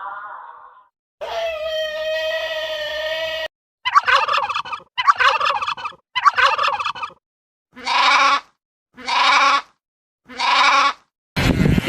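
Turkey gobbling: three rapid, warbling gobbles about a second apart, among other animal calls. A steady, drawn-out pitched call comes before them, and three shorter pitched calls come after.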